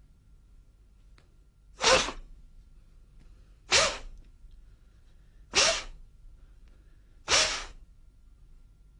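Four sharp, forceful exhalations, one about every two seconds, each a short explosive rush of breath with a slight voiced edge: a martial artist's combat breathing during a body-conditioning exercise.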